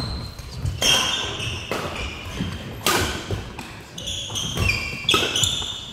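Badminton rally: three sharp racket strikes on the shuttlecock about two seconds apart, with sports shoes squeaking and thudding on the wooden gym floor between the hits.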